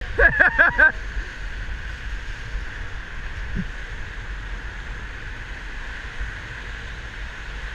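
Whitewater rapid rushing steadily around an inflatable raft, with wind rumbling on the microphone. In the first second there is a short, loud, high call repeated four times.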